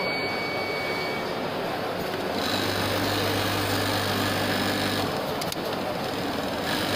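Computerized pattern sewing machine running in a factory, a steady mechanical whirr with a low hum that sets in about two and a half seconds in, pauses briefly around five seconds, and comes back near the end.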